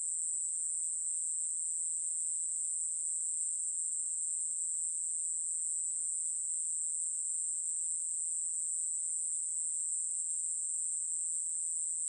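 Conehead katydid (여치베짱이) singing: a continuous, steady, high-pitched buzz with no breaks.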